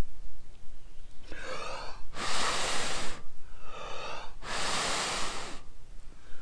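A person drawing in breath and then blowing long and hard into a smouldering tinder nest, twice, to coax the ember into flame.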